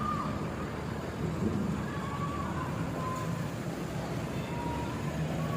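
Road traffic at the roadside: a steady low engine rumble, with a few faint short high tones.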